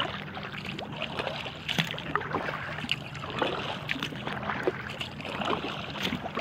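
Lake water lapping and splashing against the hull of an inflatable kayak under way, with many small, irregular splashes and drips.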